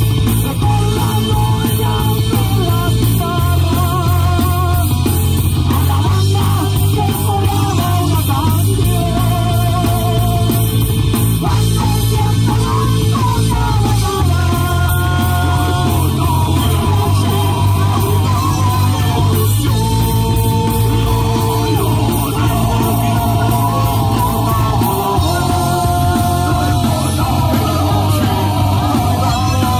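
Rock band playing live through a PA: electric guitars, bass, drums and keyboard, with a sung lead vocal over a steady heavy bass line.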